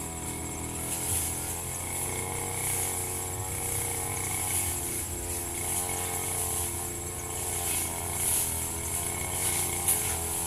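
Firman FGB 528 two-stroke brush cutter running steadily while cutting grass, with a short sharp hit near the end.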